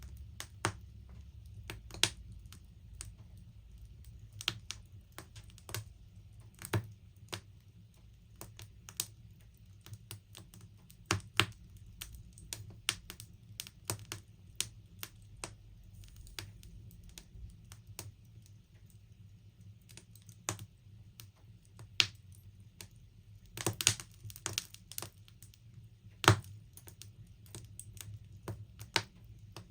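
Burning wood logs crackling in a log burner: irregular sharp cracks, at times several a second, over a faint low rumble. A cluster of cracks comes about two-thirds through, and the loudest single crack follows soon after.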